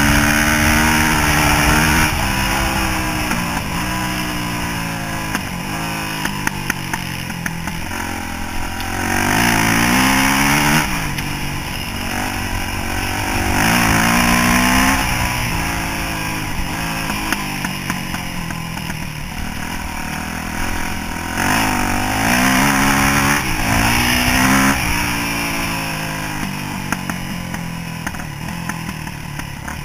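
Yamaha YZ426F dirt bike's single-cylinder four-stroke engine riding along, revving up through the gears and dropping back several times, the pitch rising then falling with each surge.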